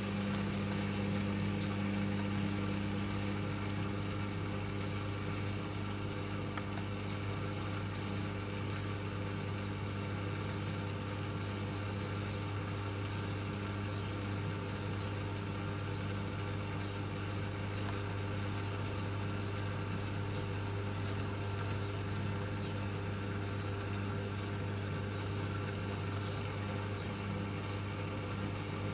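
Miele W1 WMF121WCS front-loading washing machine's drum motor running with a steady hum, turning the wet load during the short spin of the first rinse.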